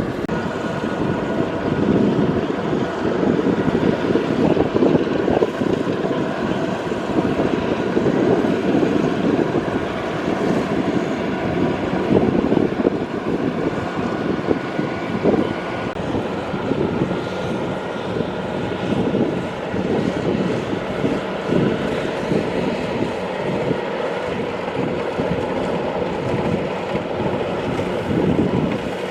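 Kubota DC-70 Plus rice combine harvester running steadily at work: its diesel engine and threshing machinery make a continuous mechanical drone with a faint steady whine over it.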